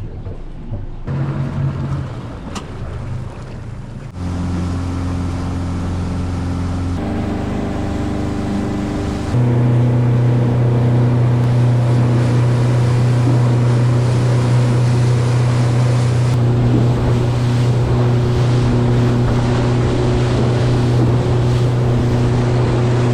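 Fishing charter boat's engine running steadily underway, with water and wind noise. The drone jumps abruptly a few times and is loudest from about nine seconds in.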